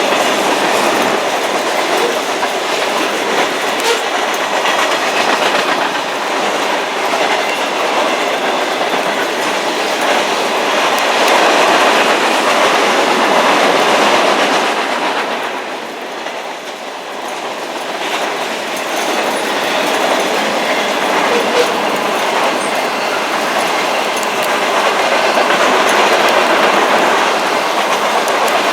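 Cars of a CSX freight train rolling past close by: a steady rumble of steel wheels on rail with clickety-clack over the joints. The noise eases for a moment about halfway through, then builds again.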